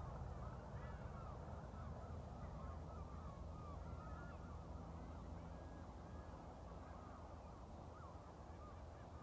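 Low, steady rumble of a passing train's Class 37 diesel locomotives, slowly fading as the train draws away. Many short bird calls sound over it throughout.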